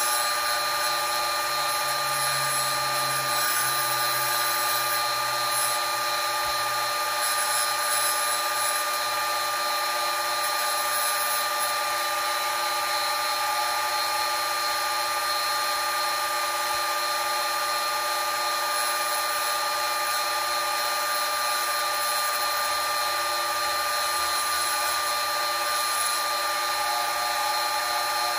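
Wet tile saw running with a steady high whine as its water-cooled diamond blade cuts a round glass bottle.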